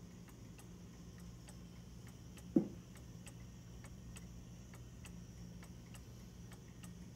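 Antique German Black Forest eight-day cuckoo clock ticking steadily, about two ticks a second, after its cuckoo has finished calling the hour. A single dull thump sounds about two and a half seconds in.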